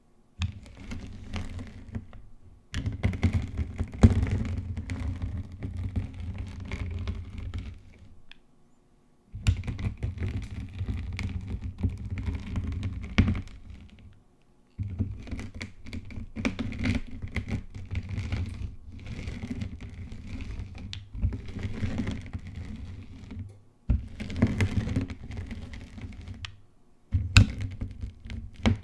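Gym chalk being rolled and crushed, crunching and popping as a dense run of small clicks. It comes in several spells of a few seconds each, with brief pauses between.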